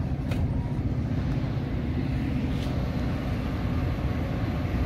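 Steady low rumble of a Metra bilevel commuter train standing at the platform with its doors shut, its diesel locomotive running. Two faint clicks sound over it, one just after the start and one about two and a half seconds in.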